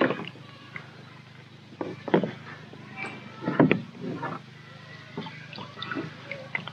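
Rope being hauled in hand over hand from a plastic kayak, with a few short knocks and light splashing as a mesh crayfish pot is lifted out of the water.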